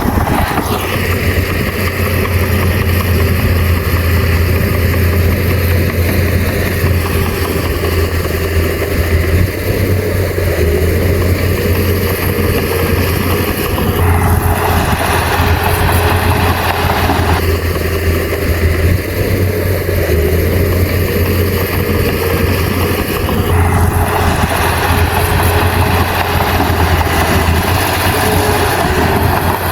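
Bulldozer's diesel engine running steadily with a deep, even hum. For a few seconds around the middle, and again over the last several seconds, a broader rushing noise rises over it.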